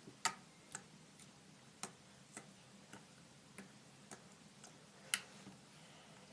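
Slime being poked with a finger, giving small sharp clicks and pops about twice a second at uneven spacing.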